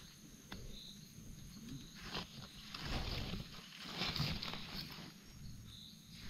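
Irregular rustling and crackling in dry forest-floor leaf litter from someone moving and working among it, with scattered sharp snaps, busiest about halfway through. Two brief high chirps are heard, one early and one near the end.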